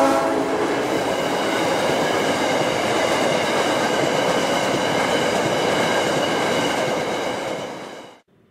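Ore hopper wagons of a freight train rolling past close by: a steady loud rumble of wheels on rail, with a few steady high whining tones over it. It fades out near the end.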